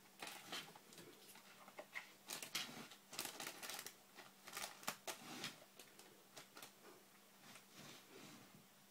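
Young Siberian cat pawing and scrabbling at a plastic laundry basket on a tiled floor: faint scratching, clicking and rustling, with a quick flurry in the middle and only scattered clicks at the start and end.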